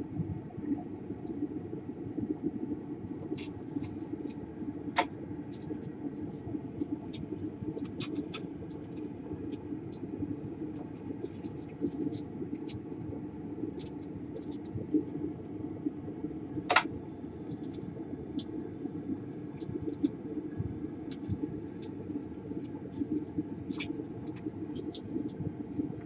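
Scattered light clicks and scrapes of hand work with a needle-tipped syringe and tools on a laptop motherboard around its DC power jack, two ticks a little sharper than the rest, over a steady low hum.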